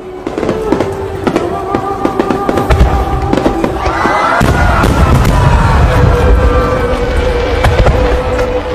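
Aerial fireworks bursting in a rapid run of bangs and crackles, with a heavy low rumble from about three seconds in and whistling tones that rise about four seconds in.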